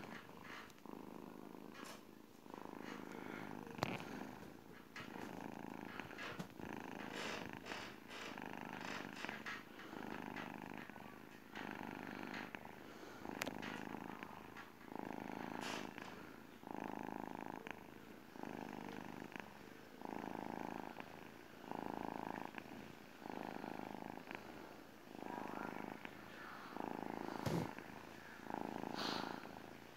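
Tabby kitten purring steadily, the purr swelling and easing with each breath in a regular rhythm about once every second and a half.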